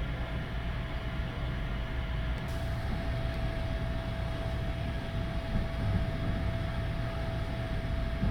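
Sunrise Express sleeper train rumbling along, heard from inside a compartment: a steady low running noise with a constant thin hum over it.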